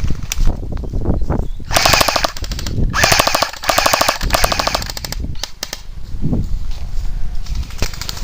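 Airsoft electric gun firing on full auto: two bursts of fast, even mechanical clicking, a short one about two seconds in and a longer one of about two seconds right after.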